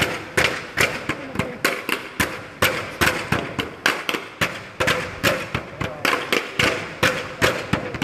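Hand-held percussion tubes or sticks clacking sharply in a steady dance rhythm, about two or three strikes a second, some of them in quick pairs, struck together and against a wooden deck.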